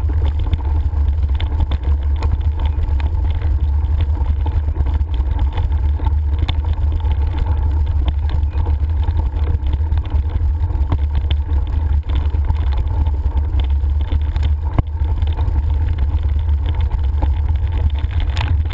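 Steady, loud low rumble of a ride along a rough gravel track, with frequent small knocks and rattles from the jolts over stones.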